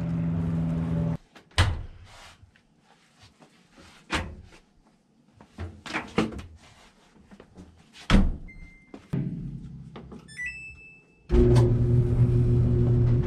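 Clothes dryer being loaded and started: a series of thunks from the door and drum, the loudest about eight seconds in, then short electronic beeps from the control panel. Near the end the dryer starts running with a steady hum.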